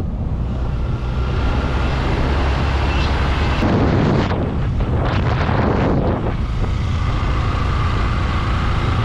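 Motorcycle engine running steadily on the move, with wind rushing over the microphone and swelling a few times.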